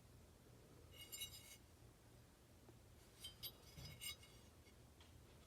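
Faint clinks and light rattles of M16A1 rifle receivers being handled, in two short bursts about a second in and between three and four seconds in, over a low steady hum.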